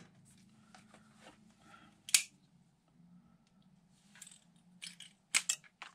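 A zip tie being snipped off an air rifle, heard as a few sharp clicks, the loudest about two seconds in and two more near the end, with light handling of the rifle's parts.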